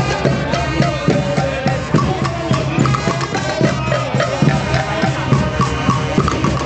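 Marching band playing as it parades: marching glockenspiels ring out the melody over bass drums, cymbals and a sousaphone, with a steady beat.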